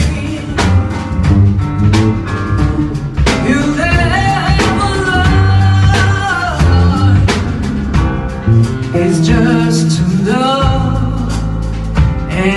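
A band playing a slow song, with drum kit, guitar and bass under a gliding sung melody line.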